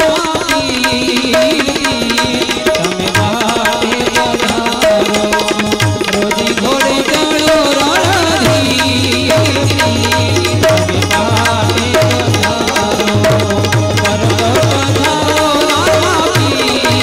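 Harmonium and tabla playing a Gujarati bhajan tune: sustained reedy harmonium notes carry the melody over a steady tabla beat.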